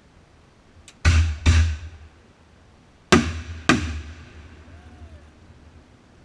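Aerial firework shells bursting overhead: four sharp booms in two pairs, one pair about a second in and another about three seconds in, each trailing off in echo.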